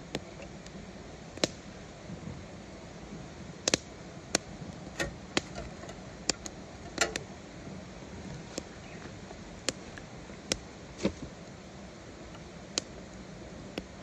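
Wood fire crackling: a dozen or so sharp, irregular pops and snaps over a steady hiss.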